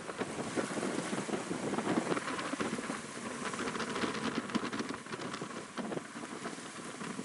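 Water rushing and splashing along a moving sailboat's hull as a steady crackling hiss, with wind buffeting the microphone.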